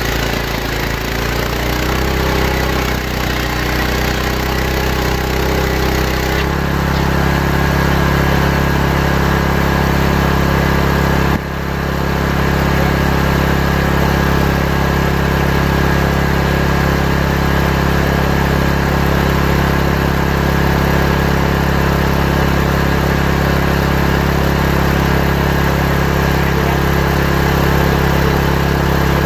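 Large circular saw bench running steadily while ripping a santol-wood plank into boards: a constant machine hum under the blade's cutting noise. The hum shifts in pitch about six seconds in, and there is a brief dip in level near the middle.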